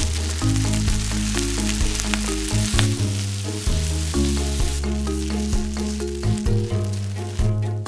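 Kimchi fried rice and thin-sliced beef brisket sizzling in a frying pan, stirred and scraped with a wooden spatula, with light clicks from the stirring. The sizzling dies down about five seconds in, leaving background music.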